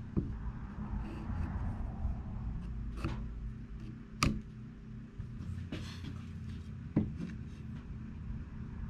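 Mechanical pencil scratching marks on a plywood board while a thin wooden strip is held and shifted against it, giving a few light clicks and knocks, over a steady low hum.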